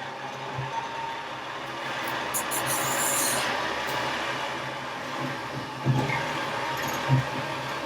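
Heavy machinery running with a steady noise, a short hiss about two and a half seconds in, and a few low knocks near the end.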